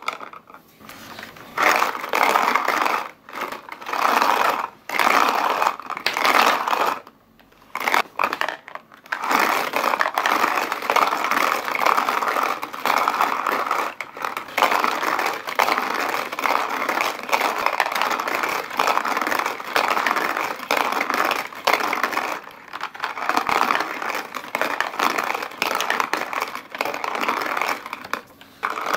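Paper-craft Garapon bingo machine being hand-cranked: small balls rattle and tumble inside its cardboard drum and roll down the cardboard board, with a few short pauses.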